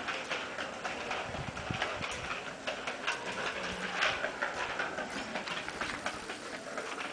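Child's bicycle with training wheels rolling over a tiled floor, its wheels and frame rattling and clicking in a quick, irregular clatter.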